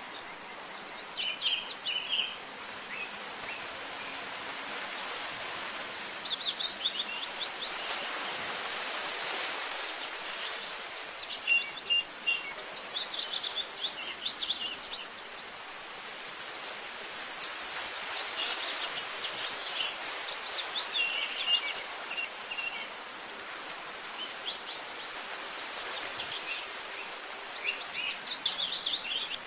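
Small birds chirping in short scattered phrases over a steady, even hiss, with a quick rattling trill a little past the middle.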